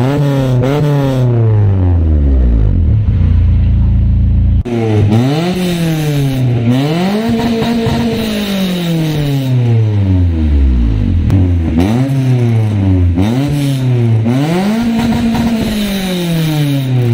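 A Honda Civic's four-cylinder engine is free-revved through an HKS chambered axle-back muffler. Quick blips at the start give way to a long fall back to idle, broken off sharply about four and a half seconds in. After that come several rev-ups that climb, hold briefly at the top and drop back.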